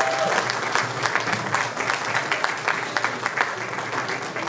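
Audience applauding: dense, irregular clapping that eases off slightly toward the end.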